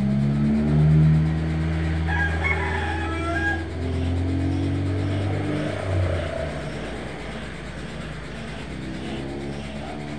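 A rooster crows once, about two seconds in, over the low steady running of a motor vehicle's engine. A vehicle drives past on the road about six seconds in, after which the engine sound fades.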